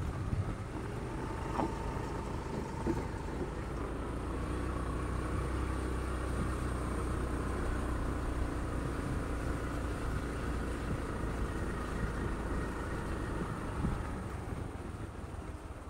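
A vehicle driving slowly along a gravel dirt road, with a steady low engine and tyre rumble that eases off a little near the end.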